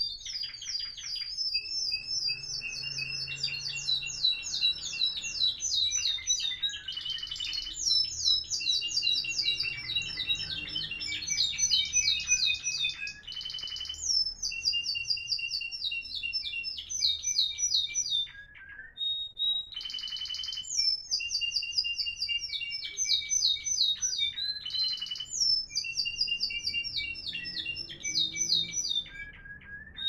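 Spanish timbrado canaries singing florealdo-style song: long runs of fast repeated high notes and rolling trills, with a short break a little past halfway.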